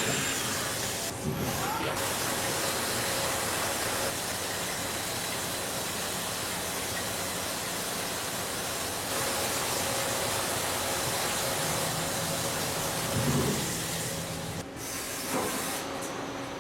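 CNC turning center running a machining cut: a steady hiss with faint steady machine tones underneath. The hiss dips briefly about a second in and again near the end.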